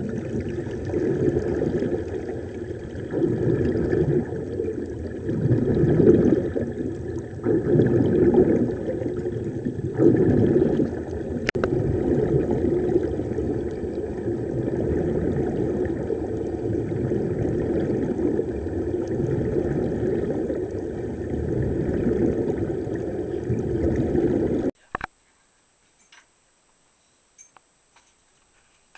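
Muffled underwater rush and gurgle of air bubbles streaming up from diving helmets, swelling and fading in waves. It cuts off abruptly near the end, leaving near silence with a few faint clicks.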